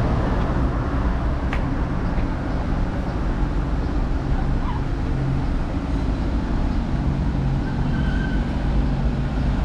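Road traffic noise: a steady rumble of car engines running along a street.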